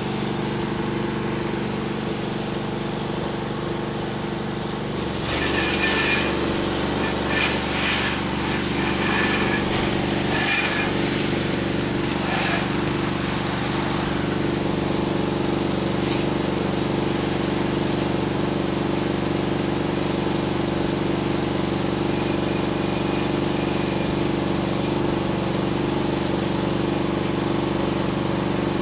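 Engine of a roof-washing spray rig running steadily. About five seconds in it runs louder, with hissing spray on and off for several seconds.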